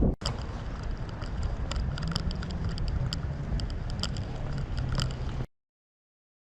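Car on the move: steady road and engine rumble with scattered light clicks and rattles, cutting off abruptly about five and a half seconds in.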